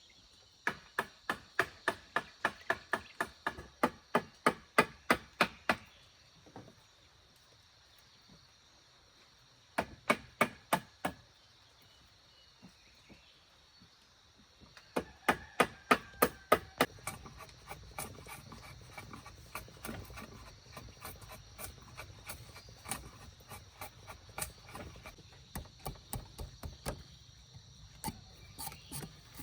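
A hand tool striking wood in quick runs of sharp blows, about three a second, with pauses of a few seconds between runs. In the second half the blows are fainter and come closer together.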